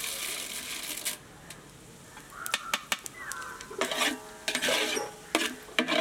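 Urad dal tipped into hot oil in a large metal pot, hissing for about the first second. Then a metal slotted ladle stirs the dal and mustard seeds, scraping and clinking against the bottom and sides of the pot.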